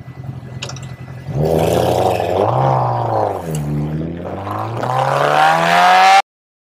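Sport motorcycle's inline-four engine pulling away from a stop, with wind rushing over the helmet microphone: the revs climb, ease off and fall for a moment, then climb steadily again before the sound cuts off abruptly near the end.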